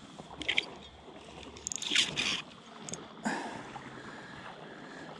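River water flowing steadily, broken by a few short, sharp noises: one about half a second in, a cluster around two seconds, and a click and another burst near three seconds.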